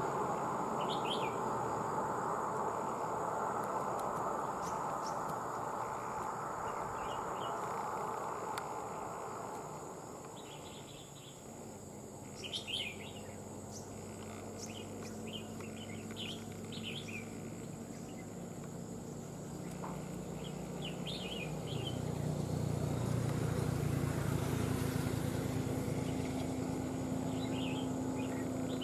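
Red-whiskered bulbuls giving short chirping calls in scattered bursts. Under them is a steady rushing noise, which fades about a third of the way in and gives way to a low drone that grows louder near the end.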